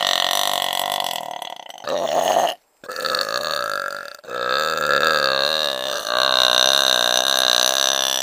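A girl belching long, drawn-out burps one after another, about five in a row, each lasting one to two seconds with a wavering pitch.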